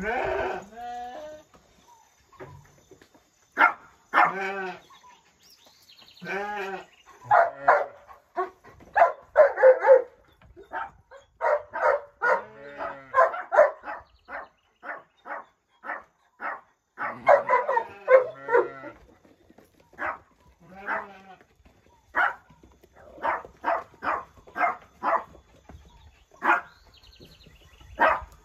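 A flock of sheep bleating again and again, with long wavering calls. A dog barks in short repeated barks among them, coming thickest in the second half.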